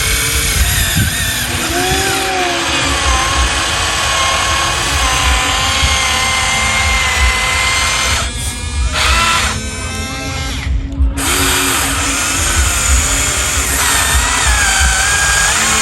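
Small electric motors of a Huina 1593 RC excavator whining, their pitch gliding up and down as the machine works.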